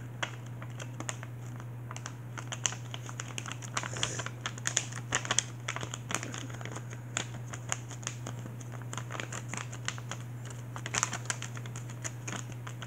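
A sheet of paper being folded and creased by hand, with irregular crinkling crackles and clicks as it is bent and pressed, thickest around the middle and again near the end. A steady low hum runs underneath.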